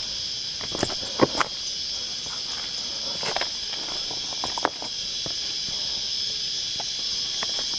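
A steady, high-pitched chorus of insects in dry bush. A few crunching footsteps and snapping twigs in dry grass and brush fall in the first five seconds, the loudest about a second in.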